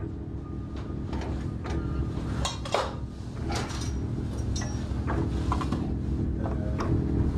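Irregular metallic clanks, knocks and rattles over a low steady drone, growing gradually louder.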